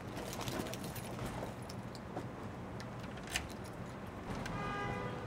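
A bunch of keys jingling as they are taken out of a handbag, then a key going into a door lock, with one sharper metallic click about three and a half seconds in.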